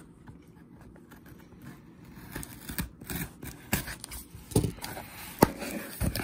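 Hands handling a cardboard box: scraping and rustling with a scatter of sharp taps and clicks, the sharpest about five and a half seconds in.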